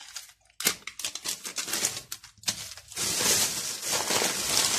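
Hands rummaging in thin plastic shopping bags, the plastic crinkling. It comes as a few short separate rustles at first, then turns to steady continuous crinkling about three seconds in.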